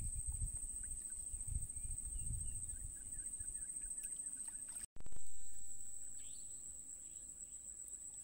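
Swamp-side ambience: a steady high-pitched drone of crickets or other insects, with a low uneven rumble of wind on the microphone in the first half. The sound breaks off for an instant about five seconds in, and after that there are a few short falling bird chirps.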